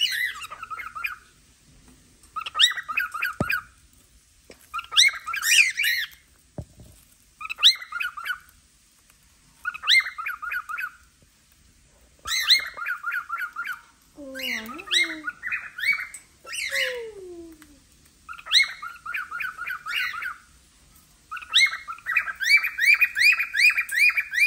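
Cockatiels chirping in repeated quick bursts, about one every two seconds, with a longer, louder run of chirps near the end. Two lower calls that slide down in pitch come about halfway through.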